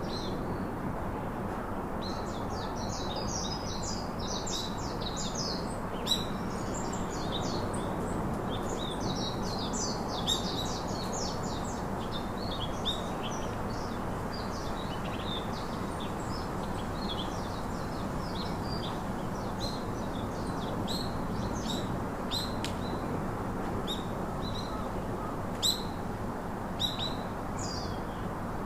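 Several small birds chirping and trilling in quick high-pitched bursts, thickest in the first half, over a steady background hiss.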